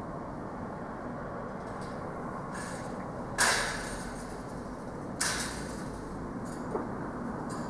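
Bangs from a supermarket goods yard where home delivery vans are being loaded: a sharp bang about three and a half seconds in, a smaller one just under two seconds later, and a faint knock near the end, over a steady low background hum.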